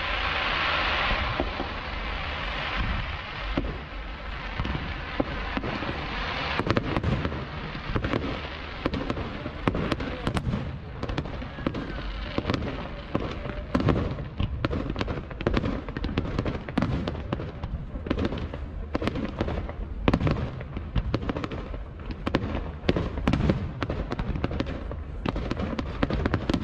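Fireworks display: a steady hiss for the first few seconds, then from about six seconds in a rapid string of sharp bangs and crackles, several a second.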